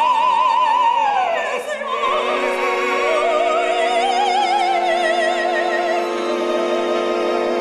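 Operatic soprano singing with wide vibrato over instrumental accompaniment. A long high note falls away about a second in, and a lower held note starts about three seconds in.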